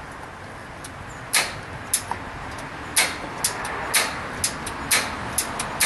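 Gas grill side burner being lit: sharp ignition clicks, about one a second, over a steady hiss of gas that starts about a second in.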